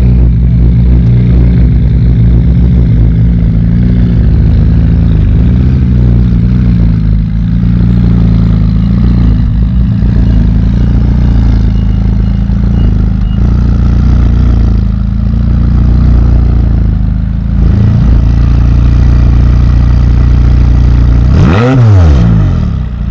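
McLaren 570S's twin-turbo V8 running at idle, loud at the rear exhaust. Near the end it gives one quick rev that rises and falls back.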